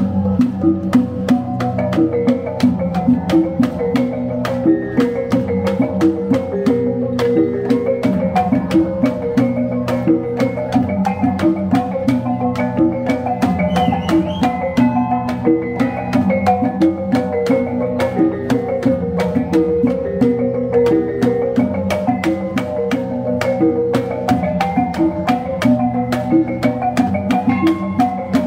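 Kulintangan gong-chime ensemble playing. A row of small bossed kettle gongs rings out a fast repeating melody over an even beat from a long drum and large hanging gongs.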